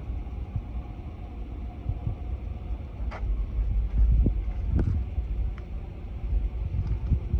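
Steady low vehicle rumble, with a few light knocks and clicks, the clearest about three and five seconds in.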